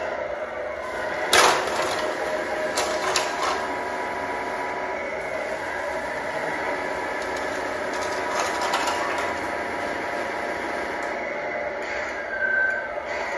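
1/14 Tamiya Grand Hauler RC semi's drivetrain running under load as it slowly drags a pull sled: a steady mechanical whine, with a sharp clack about a second and a half in and a few lighter clicks after it.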